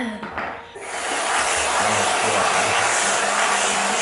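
Aerosol can of whipped cream spraying in one long, steady hiss that starts about a second in.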